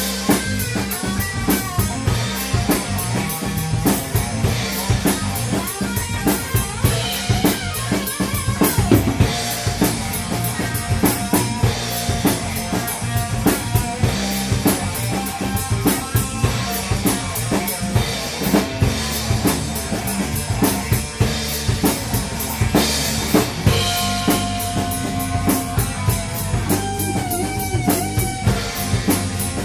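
Music with a steady drum-kit beat: kick, snare and cymbals, with pitched instrumental lines over it.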